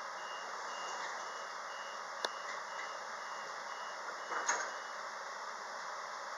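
Queensland Rail IMU 160 interurban train's door-closing warning beeps, a steady series of short high beeps at about two a second, as the passenger doors slide shut. The beeps stop about five seconds in. There is a sharp click a little over two seconds in and a brief louder noise at about four and a half seconds, over the steady hum of the carriage.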